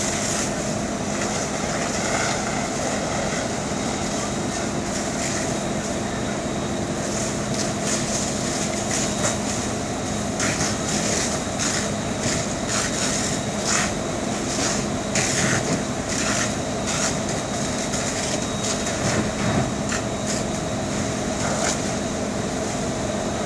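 Burning semi-truck being hosed down: a heavy diesel engine drones steadily under the hiss of the water stream, while irregular crackles and pops from the fire come thickest through the middle stretch.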